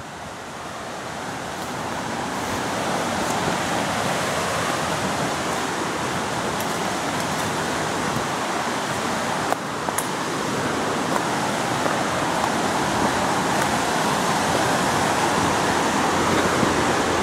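Steady rush of a waterfall and stream below, growing louder over the first few seconds and then holding, with a single light click about ten seconds in.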